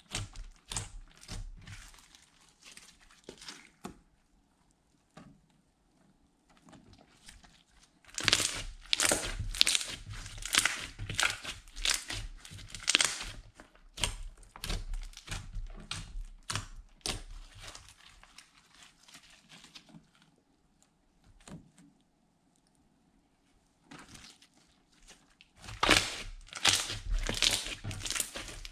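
Hands kneading, pressing and poking teal glitter slime: dense runs of sticky clicks and crackles as the slime is squeezed and pulled. The crackling is loudest in a long stretch from about a third of the way in and again near the end, with quieter pauses between.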